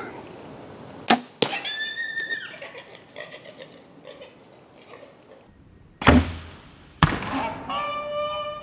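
A bow shot on a feral hog: the sharp snap of the bowstring, then the thwack of the arrow striking, and the hog squealing for about a second. The shot then plays again slowed down, with the two impacts spread apart and the squeal lower and drawn out.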